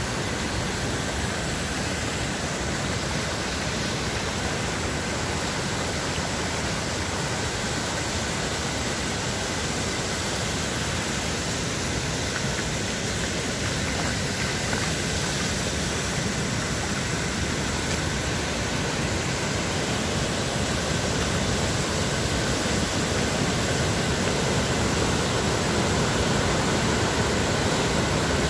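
Floodwater rushing: small torrents pouring over a path and the swollen Doubs river in flood, a steady noise of water that grows a little louder near the end.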